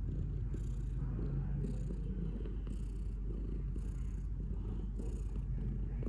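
Domestic cat purring: a steady low rumble, with a faint high hiss returning about once a second.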